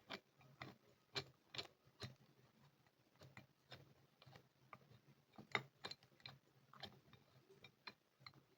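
Faint, irregular small clicks and taps, about a dozen scattered over several seconds, from a large adjustable wrench being handled and turned over.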